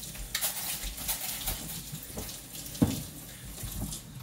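Water running from a kitchen faucet for about the first second and a half, then fading out. About three seconds in comes a single sharp knock, with a few light clicks from things being handled on the counter.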